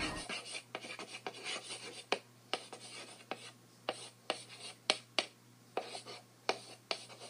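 Chalk writing on a chalkboard: scratchy strokes broken by sharp taps as the chalk strikes the board, about two taps a second.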